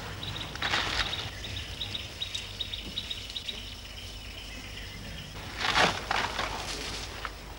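An elephant breaking and rustling tree branches as it feeds, with two louder crackling rushes about a second in and near six seconds. A rapid high chirping runs through the first half.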